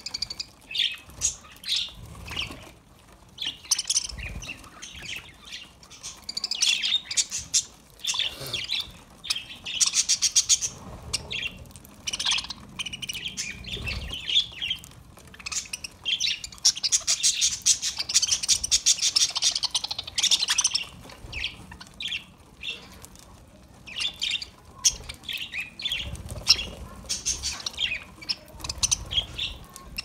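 A flock of budgerigars chattering: many short chirps and squawks overlapping, busiest just past the middle.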